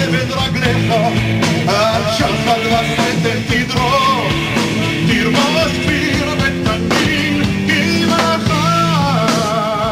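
Live band playing a rock-style song: drums, bass and guitars, with a melody line wavering in vibrato on top near the end.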